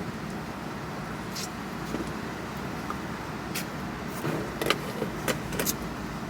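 Steady low hum inside a car cabin, with a few scattered small clicks and taps.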